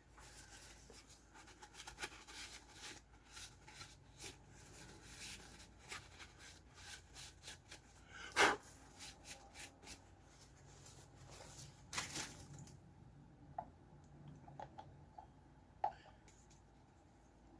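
Faint rustling and handling sounds of a paper napkin being handled and wiped over a surface, with small clicks throughout and two brief louder scuffs, about eight and a half and twelve seconds in.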